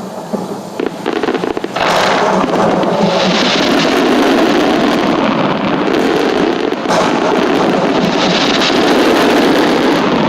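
Fireworks bursting and crackling in a rapid barrage. The barrage jumps to a dense, loud, continuous crackle about two seconds in.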